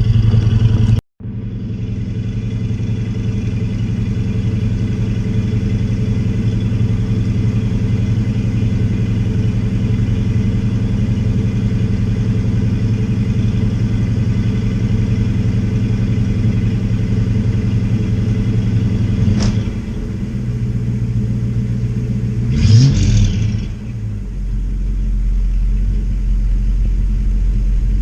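An engine running steadily with a low, even hum. There is a sharp tick about two-thirds of the way through and a brief rattle a few seconds later, after which the sound settles into a deeper rumble.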